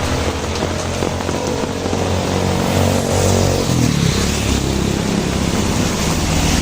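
A motor vehicle's engine running close by over steady heavy rain, its pitch dropping and then rising again about halfway through.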